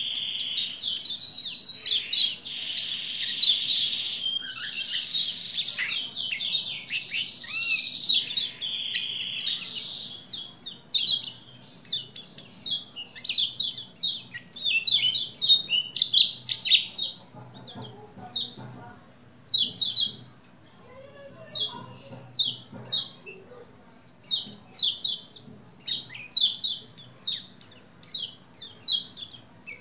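Lemon-bellied white-eye (pleci Lombok, kecial kuning) in full song: an unbroken, high, rapid warbling stream for about the first ten seconds, then short fast chattering phrases with brief pauses between them.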